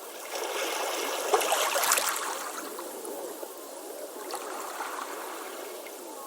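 Ocean waves on a beach: a wave comes in and breaks about half a second in, loudest around two seconds, with a crackling rush. The water then runs back, quieter and steady.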